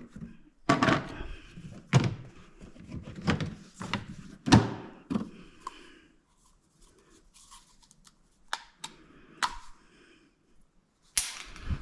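Hollow knocks and clatter of central-vacuum PVC pipe and fittings being set down and handled: a run of sharp knocks over the first five seconds, a few lighter clicks later, and one loud knock near the end.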